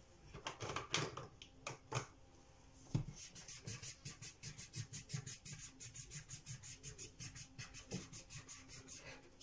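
Felt-tip marker scribbling on paper while colouring in. There are a few separate strokes, then a light knock about three seconds in, then rapid back-and-forth strokes at about six a second.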